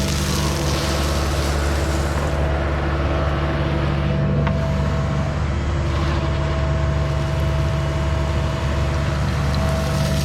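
Diesel engine of a compact earthmoving machine running steadily under work, a low drone with a steady higher whine over it that drops out briefly about halfway.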